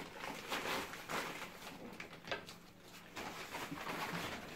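Rustling and crinkling of a gift bag as a boxed camera is pulled out of it, in irregular scrapes and crackles.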